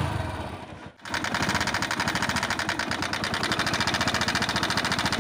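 Hero HF Deluxe's single-cylinder engine idling with a fast, even clatter from a slack timing chain. The cam chain tensioner was leaking and could not keep the chain tight. The clatter starts about a second in.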